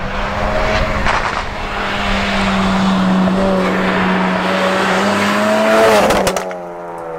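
Modified Mk3 Ford Focus RS with a 2.3-litre turbocharged four-cylinder EcoBoost engine and a Mountune V3 exhaust, driving at speed towards the listener with a steady engine note and tyre roar. It passes close by about six seconds in, where its note peaks and then drops in pitch and fades as it goes away.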